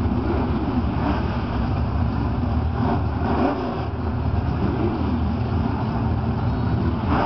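Many car engines running at once, a loud continuous rumble with revs rising and falling in pitch several times.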